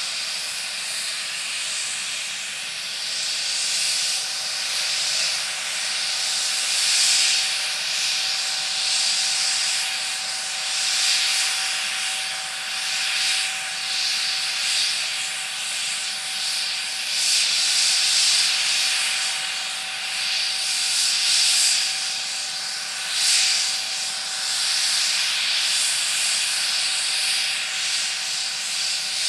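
McDonnell Douglas MD902 Explorer helicopter's twin turboshaft engines running on the ground: a steady turbine whine under a loud rushing hiss that swells and fades every few seconds.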